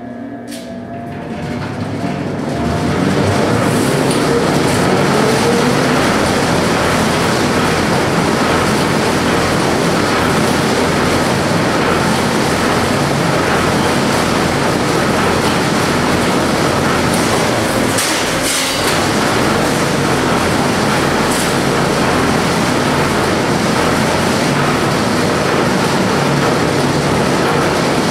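Large power squaring shear running after being switched on: its drive motor spins up over the first few seconds, then runs steadily with a loud, even mechanical hum and clatter.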